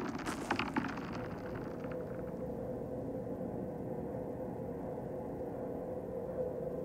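Electronic film-score sound design. Scattered crackling clicks die away over the first two seconds, then a low rumbling drone holds steady with a sustained mid-pitched tone.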